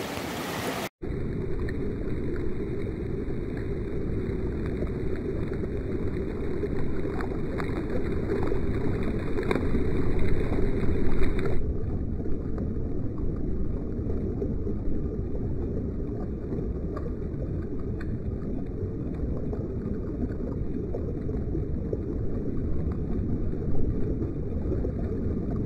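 Swift river current rushing past a camera at the water's surface: a steady, low, dull rush of water. It turns duller still about halfway through.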